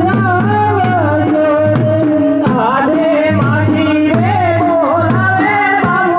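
Loud Indian folk-style song: a voice sings a wavering, ornamented melody over a steady hand-drum rhythm.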